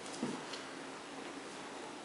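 Mostly quiet room with one short, soft sound from the two Cardigan Welsh Corgi puppies playing at their dog bed about a quarter second in, then a faint tick.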